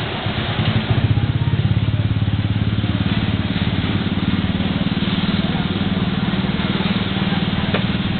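Jeepney engine running, heard from inside the passenger cabin as it moves through traffic, with a steady low pulsing drone that gets louder about a second in.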